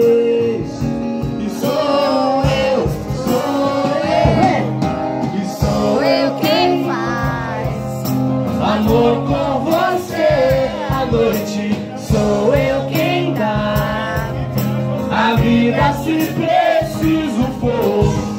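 Amplified music with a singer's voice over instrumental backing and a steady beat, played through loudspeakers.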